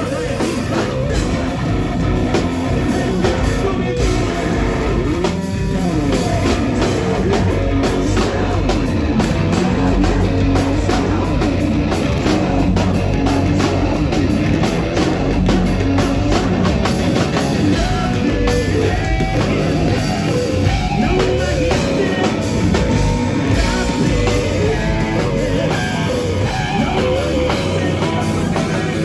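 Live heavy rock band playing: distorted electric guitars, bass and a drum kit, with a vocal over the top, loud and unbroken.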